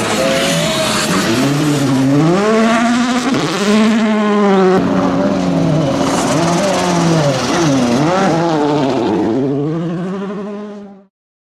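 Volkswagen Polo R WRC rally car's turbocharged 1.6-litre four-cylinder engine revving hard, its pitch climbing and falling again and again as it accelerates, shifts and lifts off. The sound dies away and cuts off suddenly near the end.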